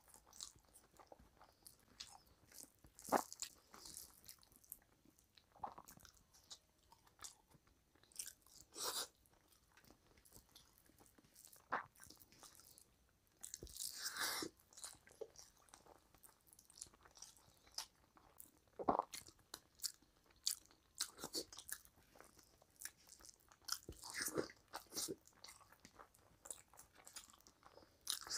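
A person eating rice and curry by hand, with close mouth sounds: chewing, wet smacks and clicks in scattered short bursts separated by quiet gaps.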